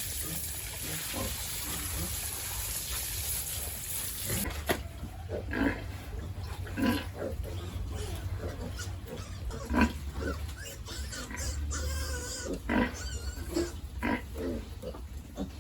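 Pigs grunting in a string of short calls, about one a second, with a higher squealing call later on. A steady hiss for the first few seconds stops suddenly, and a low hum runs underneath.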